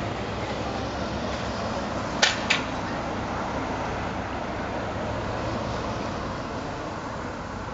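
Steady street traffic noise as a car drives past, with two sharp clicks in quick succession a little over two seconds in.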